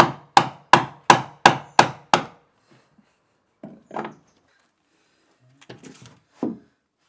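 A dog's tail wagging and knocking against the cabin's wooden wall: a loud, even run of knocks about three a second that stops a little over two seconds in. A few quieter knocks and rubs follow.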